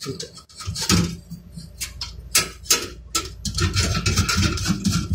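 Irregular small clicks, taps and scraping of hands handling a steel desktop computer case and its parts, turning into quicker, denser rattling from about three and a half seconds in.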